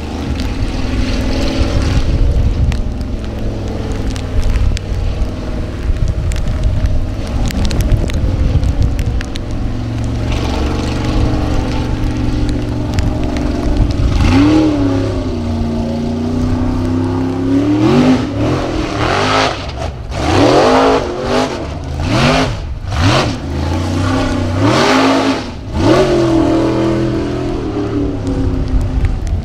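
Unlimited-class off-road race buggy's engine running steadily at low revs, then from about halfway revved hard again and again in quick rising bursts as it launches and climbs the steep hillside.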